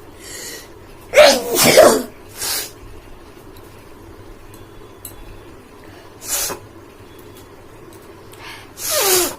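A woman sneezing loudly, about a second in, with two peaks. Shorter sniffing breaths follow, and another loud sneeze-like burst with a falling voice comes near the end.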